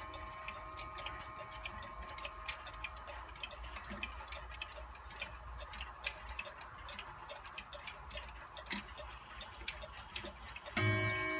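AMS regulator wall clock ticking, with clicks from its minute hand being turned forward by hand, while the tones of the half-hour strike ring away. Near the end, as the hand reaches the hour, the striking train starts with one loud stroke.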